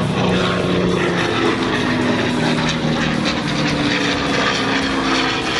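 P-51 Mustang's V-12 piston engine running in flight: a steady propeller drone that wavers slightly in pitch.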